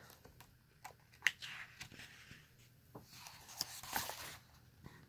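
A picture book's paper page being turned by hand: a few soft clicks and a faint paper swish about three and a half seconds in.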